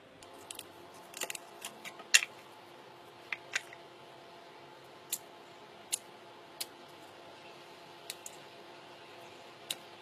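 Slime being handled: irregular crisp pops and clicks, the loudest about two seconds in.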